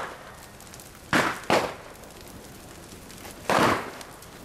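Loud sharp bangs at a large bonfire: one right at the start, two in quick succession about a second in, and another about three and a half seconds in, over the low background of the fire.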